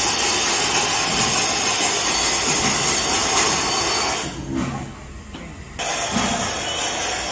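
FS Class 740 steam locomotive letting off steam in a loud, steady hiss. The hiss drops away for about a second and a half a little over four seconds in, then resumes.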